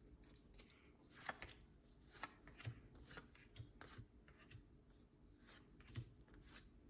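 Faint rustling and soft clicks of Pokémon trading cards being handled one after another from an opened booster pack.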